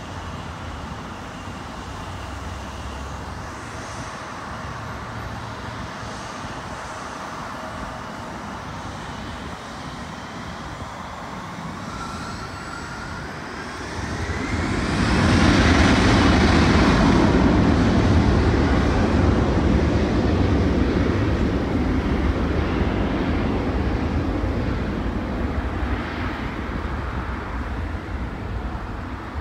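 A twin-engine regional jet's turbofans spooling up to takeoff power: a rising whine about halfway through turns into a loud jet roar that fades slowly as the aircraft rolls away down the runway. Steady highway traffic runs underneath.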